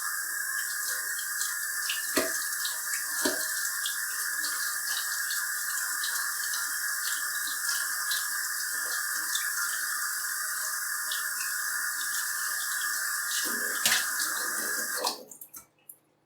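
Kitchen tap running cold water steadily over grapes in a strainer in the sink, with a few short knocks; the water is shut off about fifteen seconds in.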